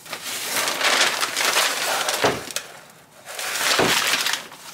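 Paper packing rustling and crinkling as it is pulled off a new pane of glass, in two stretches of a second or two.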